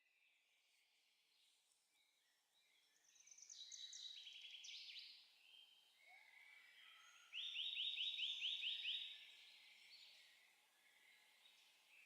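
Songbirds singing, faint: a quick cascading phrase of high notes a few seconds in, then a rapid trill of about eight notes a little later.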